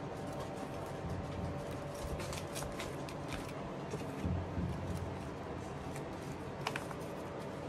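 Hands scooping and pressing potting soil into a plastic seed tray: a crackly rustle of crumbling soil with small clicks and scrapes against the plastic, and a soft thump or two about halfway through.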